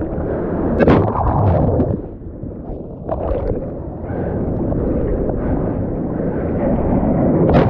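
Rushing water and wind buffeting a camera in the surf, with louder splashes about a second in and near the end.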